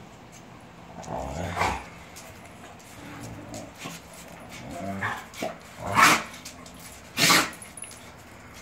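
Two dogs play-fighting: low growling with a few short, loud barks, the loudest about six and seven seconds in.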